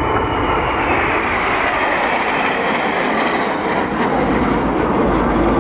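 Northrop F-5E Tiger II jet fighters passing low, a loud jet roar whose pitch slides steadily down as they go by.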